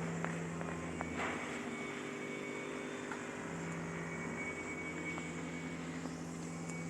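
KAMACH 1610 CO2 laser cutting machine running: a steady mechanical hum with a low tone that drops out about a second in and comes back a couple of seconds later, with a few light clicks.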